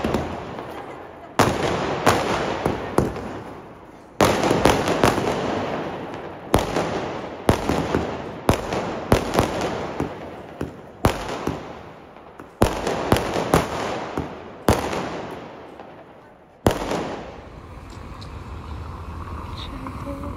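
Fireworks going off: a string of loud bangs at uneven intervals, each trailing off, stopping about seventeen seconds in.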